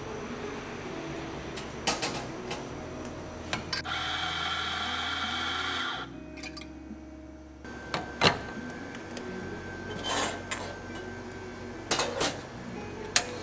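Espresso grinder motor running for about two seconds, grinding coffee into a portafilter with a steady whirring drone, then several sharp clicks and knocks as the metal portafilter is handled and locked into the espresso machine's group head.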